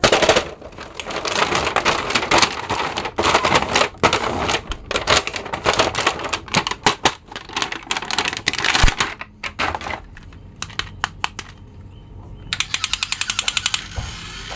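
Clear plastic toy packaging crinkling and rustling as it is handled and opened. Near the end comes a quick, even run of clicks, about ten a second, lasting under two seconds.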